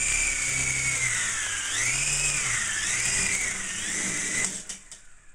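Small electric RC helicopter flying: a high motor whine and rotor hum whose pitch rises and falls as the throttle changes. It cuts out about four and a half seconds in, with a couple of knocks.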